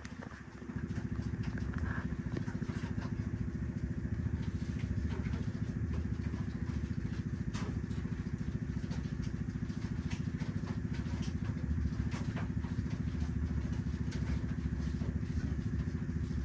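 A small motor starts up about a second in and keeps running steadily with a fast, even pulse, with occasional faint clicks over it.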